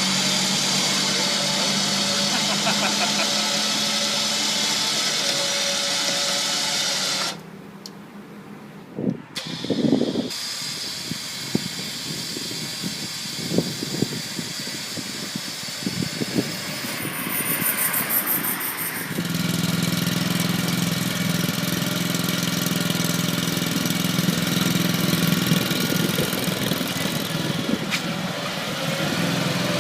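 An engine running steadily. Its hum breaks off sharply about seven seconds in, giving way to a stretch of scattered knocks and clatter, and returns about nineteen seconds in.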